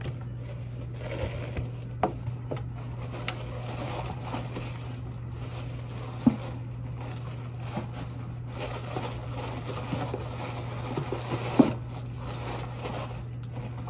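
Light rustling and scraping from handling a shoe and its packaging, with a few sharp taps, the loudest about six seconds in and near the end, over a steady low hum.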